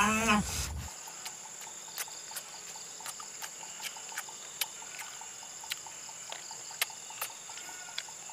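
Insects keep up a steady high-pitched drone, with scattered sharp clicks over it. The first half-second holds the end of a man's hummed "mm".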